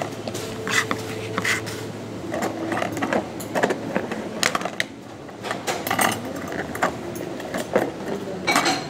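Green plastic food container being handled and closed: irregular clicks and knocks as the plastic lid is set on and pressed down, with light clatter of the utensils inside.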